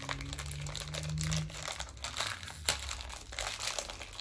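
A small plastic blind-bag wrapper crinkling and tearing as it is pulled open by hand to get at the mini figure inside, in irregular crackles.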